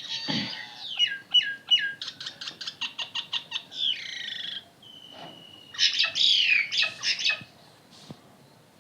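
Birds calling: sharp falling whistled notes, a quick run of short chattering notes about two seconds in, and harsh squawks around four seconds and again near six to seven seconds.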